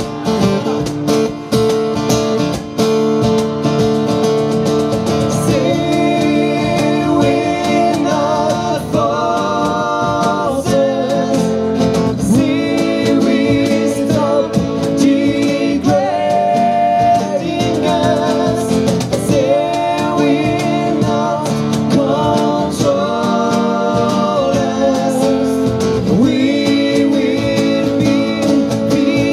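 Live acoustic band music: two acoustic guitars strummed over a steady cajón beat, with a voice singing a melody over them.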